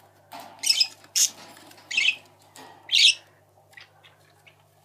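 Young budgerigars (budgie chicks) squawking: four loud, harsh, high-pitched calls in the first three seconds, with faint clicks between them.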